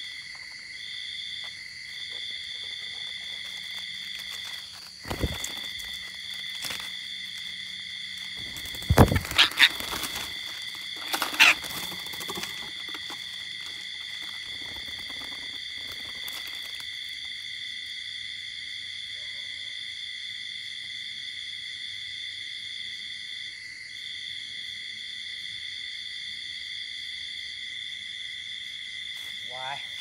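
Steady high-pitched drone of insects at several unchanging pitches, with a few sudden loud sharp sounds about five, nine and eleven seconds in, and short chirps near the end.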